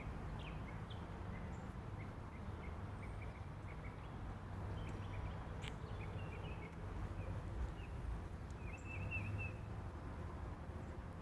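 Northern mockingbird singing in short, faint chirping notes over a steady hiss of rain, with a longer warbled phrase about nine seconds in.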